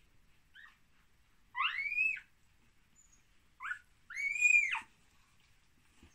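Two-day-old husky puppy crying while nursing: two high-pitched squealing cries about two seconds apart, each a short yelp followed by a longer whine that rises and falls in pitch.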